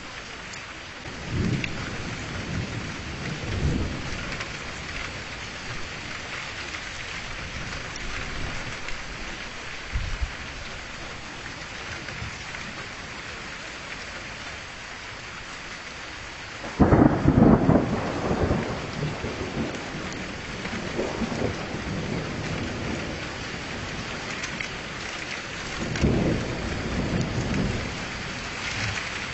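Steady rain falling, with several rolls of thunder. The loudest breaks in suddenly a little past halfway and rumbles on for a couple of seconds.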